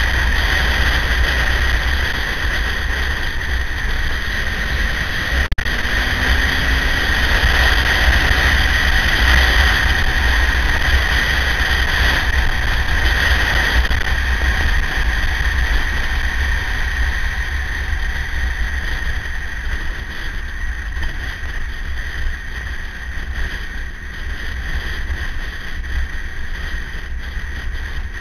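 KTM 950's LC8 V-twin engine running at road speed under steady wind rush on the onboard microphone; the roar eases a little in the second half.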